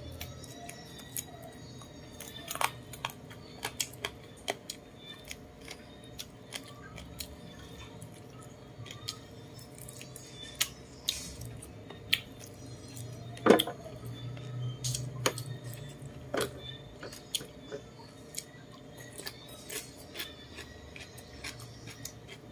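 Close-up eating sounds from a roast chicken: chewing, mouth smacks and meat being pulled from the bone, heard as scattered sharp clicks over a low steady hum. The loudest click comes about halfway through.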